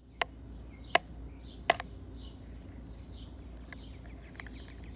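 A metal spoon tapping and cracking the hard caramelized sugar crust of a crème brûlée, three sharp cracks in the first two seconds. Repeated high chirps sound in the background throughout.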